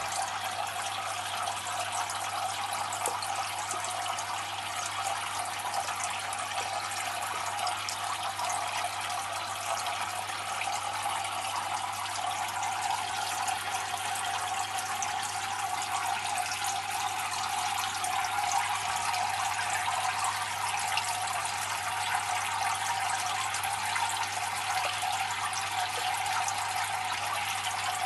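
Steady trickling splash of water falling from a filter return pipe into a tank's water, over a low steady hum.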